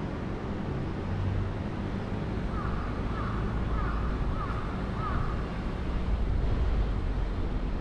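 Steady city street ambience with a low traffic rumble. Partway through, a bird calls about five times in quick succession.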